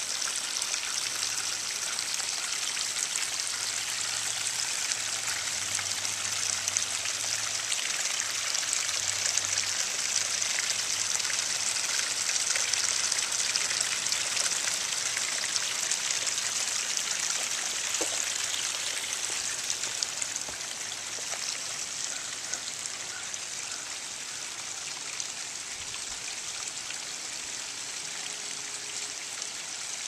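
Water trickling and splashing down a small homemade stream over black plastic pond liner and stones into a pond: a steady, even splashing hiss that eases a little about two-thirds of the way through.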